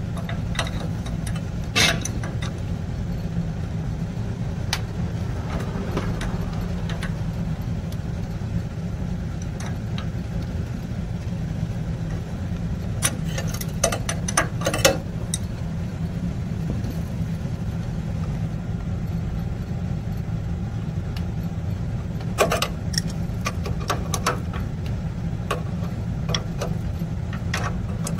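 Metallic clicks and clinks of a wrench working the nut on a water heater's gas-tube fitting at the gas control valve. They come as one click about two seconds in, a cluster about halfway through, and another cluster a little past three-quarters of the way. A steady low hum runs under it all.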